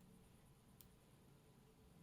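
Near silence, with one faint, short metallic tick a little under a second in, as a shim is worked into a padlock.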